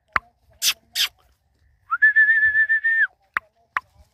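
A person whistling one steady, slightly wavering note for about a second to call a dog to run to him, with a few short, sharp clicking calls before and after it.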